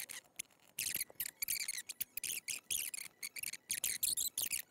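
Computer keyboard and mouse clicking in quick, irregular runs of crisp clicks.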